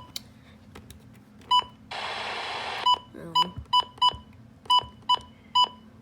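Weather radio receivers beeping as their buttons are pressed: a string of short, sharp single beeps at one steady pitch. About two seconds in, a burst of radio static plays for about a second.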